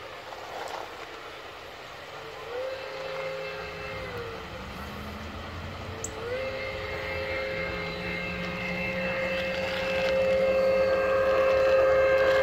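G gauge model steam locomotive's whistle: a two-note chord blows for about two seconds and stops, then comes on again about six seconds in and holds on without letting up, the whistle stuck on. It grows louder near the end.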